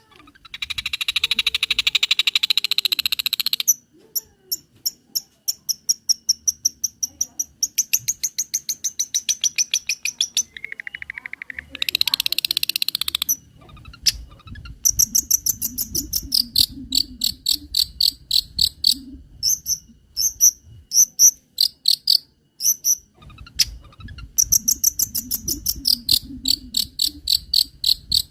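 Long-tailed shrike (cendet) singing a varied song full of mimicked filler material: a buzzy rapid trill at the start, then long runs of quick, sharp, high repeated notes, a short clear whistle and another buzzy burst near the middle, and repeated paired notes through the second half.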